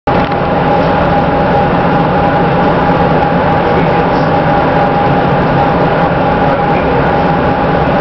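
Amtrak passenger train running at speed, heard from inside the passenger car: a steady, loud rumble and noise of the wheels on the track, with one constant tone held above it.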